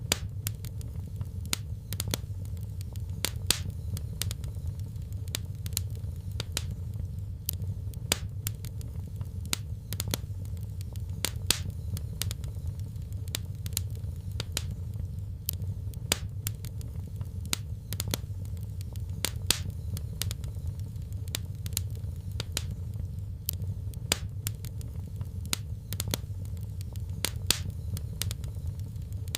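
Wood fire crackling in a fireplace: frequent sharp, irregular pops and snaps over a steady low rumble of the burning fire.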